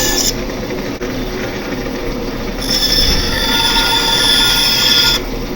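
Bandsaw running with a steady hum, its blade cutting into a wooden spoon blank with a high whine for a moment at the start and again from about halfway through until near the end.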